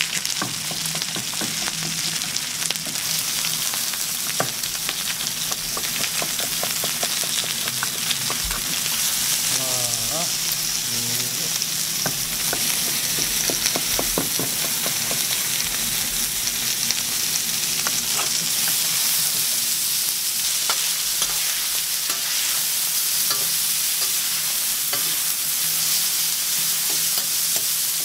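Pork belly frying on a large flat steel griddle: a steady, dense sizzle of rendering fat, with frequent short clicks and taps of metal tongs and a knife working the meat.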